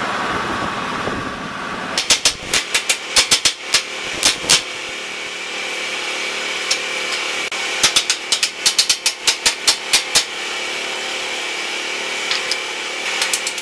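Hammer tapping dross off freshly plasma-cut steel parts: two runs of quick, sharp metallic taps, one starting about two seconds in and another around eight seconds in, over a steady machine hum.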